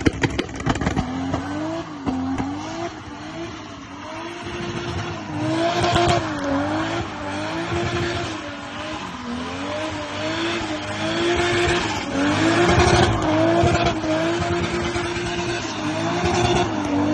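Toyota AE86 Trueno's swapped-in 1JZ inline-six engine held at high revs, its pitch dipping and rising again about once a second. A hiss swells up at times over the engine note.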